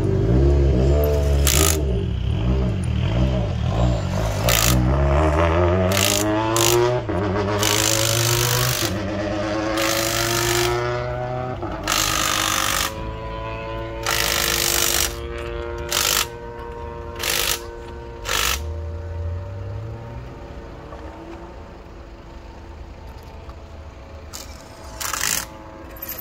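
Short buzzing bursts of an impact wrench spinning wheel nuts during a roadside wheel change, about a dozen of them, some lasting up to a second. Behind them, car engines rise and fall in pitch as they pass, fading out after about twelve seconds.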